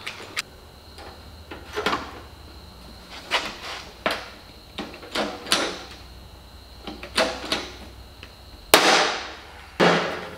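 Hand pop-rivet gun being squeezed inside a steel ammo can, a run of sharp clicks and snaps as rivets are set to fasten stainless mesh over the cut holes. Near the end, two louder metallic clanks with a ringing tail as the can is handled.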